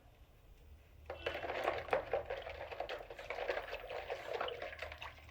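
Liquid ingredients being mixed in a bowl: a busy, splashy, ticking liquid sound that starts about a second in.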